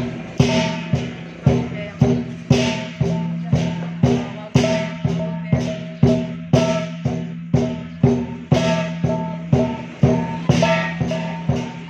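Lion dance percussion: a big drum, clashing cymbals and a gong play a steady beat of about two strikes a second.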